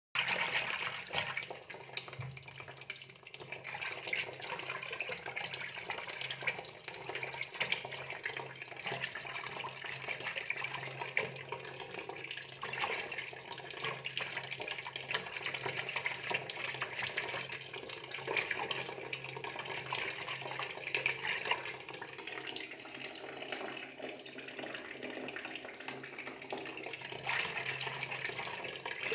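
Water running and splashing steadily into a goldfish tank, over a faint steady low hum.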